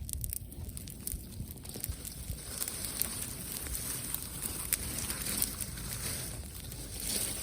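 Wood fire crackling with scattered sharp pops, and a hiss that grows from a few seconds in.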